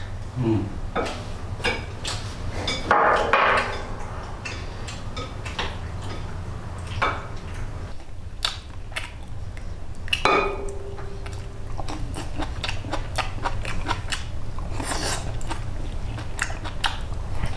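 A person eating at the table: chewing, with wooden chopsticks clicking against a porcelain rice bowl in many short ticks, over a steady low hum.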